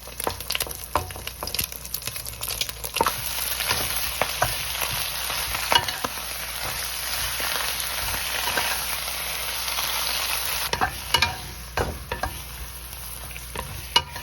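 Egg frying in oil in a pan: a steady sizzle with scattered clicks and scrapes of a spatula against the pan. The sizzle cuts off sharply about eleven seconds in, leaving only a few knocks.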